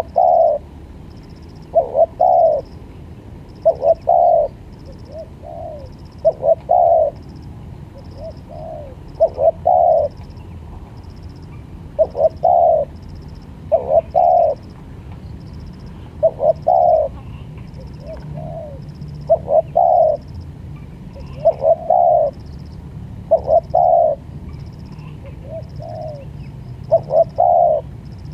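Spotted dove cooing, a short phrase of two or three notes repeated about every two seconds.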